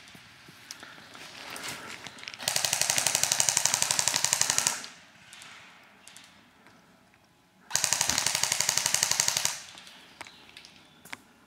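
Airsoft electric rifle firing two long full-auto bursts of rapid, evenly spaced shots, each about two seconds long, a few seconds apart.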